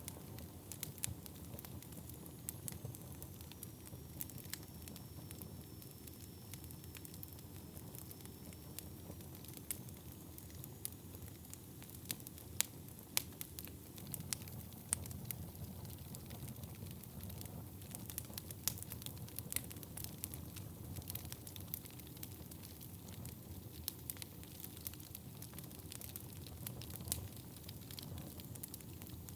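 Wood fire burning in a fireplace: a steady low rumble with sharp crackles and pops scattered irregularly throughout, and a faint thin whistle that dips and rises during the first ten seconds or so.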